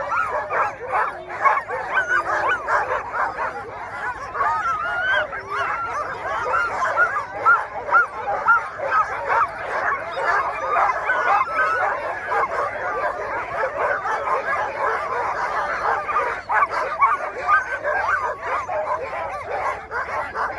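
Many harnessed sled dogs yipping, yelping and barking together in a dense, unbroken chorus: the excited clamour of a team straining to run at a race start.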